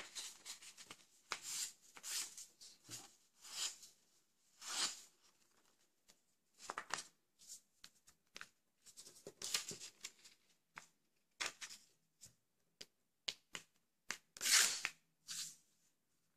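A sheet of thin paper being folded, creased and smoothed flat by hand on a table: irregular short crisp rustles, with a few longer swishes as the hands slide over the sheet.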